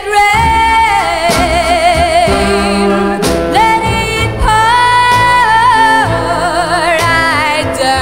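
A teenage girl's solo singing voice with a wide vibrato, holding long notes over instrumental backing.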